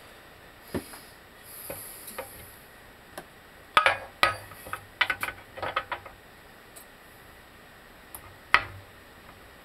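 Scattered metallic clinks and knocks from tools and a control arm being handled at a bench vise. A cluster of them comes around the middle, and one sharp knock comes near the end.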